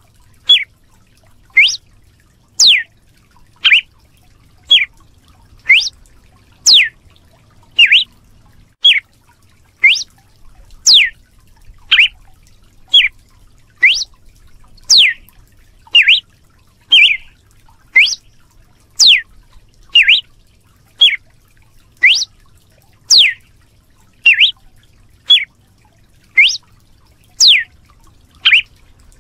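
Red-cowled cardinal (galo de campina) repeating a short, sharp whip-like call note about once a second, each note a quick sweep, some rising and some falling in pitch.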